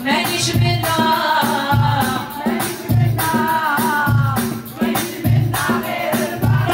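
Live Algérois festive music: a woman singing through a microphone over a percussion beat. A strong low drum hit comes about once a second, with jangling, shaker-like strokes between.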